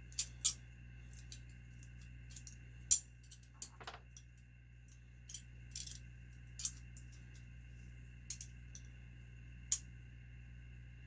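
Small metal tools clicking and tapping against model nitro engine parts: a dozen or so irregular, sharp metallic ticks and clinks, two of them louder than the rest.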